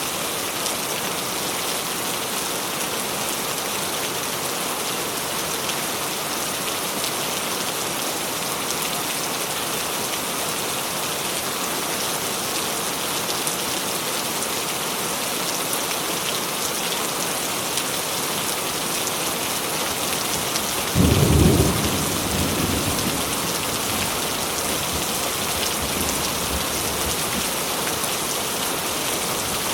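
Steady rain falling, with one sudden clap of thunder about two-thirds of the way through that rumbles away over the next few seconds.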